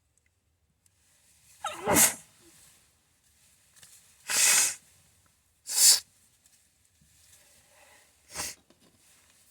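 A person in a sneezing fit, sneezing four times in quick succession, the first sneeze with a voiced build-up falling in pitch, and faint breaths drawn in between the sneezes.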